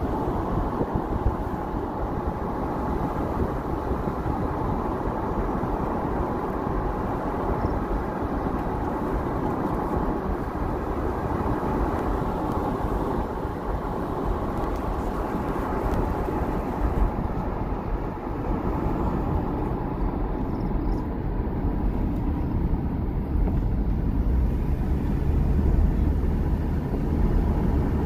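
Steady road noise of a car driving, tyre and engine rumble heard from inside the car; the low rumble grows louder near the end.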